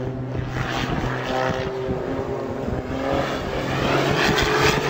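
A small single-engine propeller plane's engine drones steadily as the plane spirals down in a steep dive.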